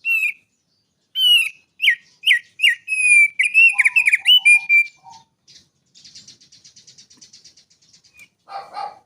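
Thick-billed white-eye (opior paruh tebal) singing: a quick run of sharp chirping notes, then a quieter fast rattle, and a short, lower, rougher burst near the end.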